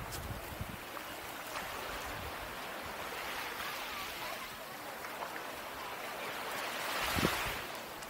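Small waves washing onto a sandy shore, with wind. The wash swells about three seconds in and louder near the end, where there is also a soft low thump.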